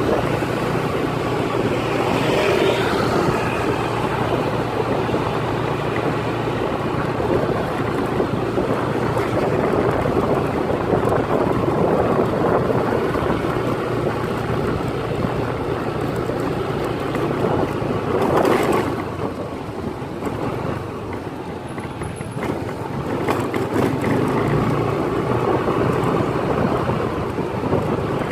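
Steady road-vehicle running noise with wind buffeting the microphone, as when filming from a moving vehicle; it briefly swells about two-thirds of the way through.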